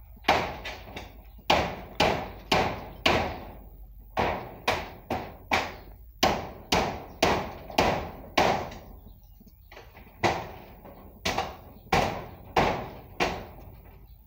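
Hammer blows on corrugated iron roofing sheets during roof stripping: a long series of sharp strikes, about two a second, each with a short ringing tail, with a brief pause in the middle.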